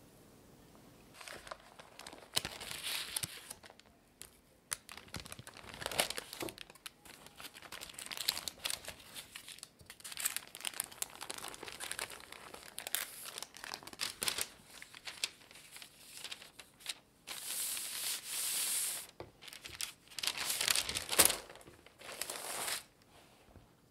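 A cloth cover and a silicone baking mat rustling and crinkling as they are handled and peeled off a baked roll-cake sponge sheet. It comes as a run of irregular scrapes and rustles, with one longer steady rustle a little past the middle.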